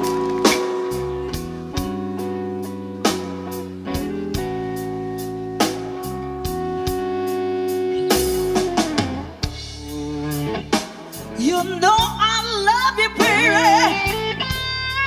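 Blues band playing live: electric guitar, bass and drum kit over a steady beat, with a long held chord through the first half. In the second half, bent, wavering high notes come in over the band.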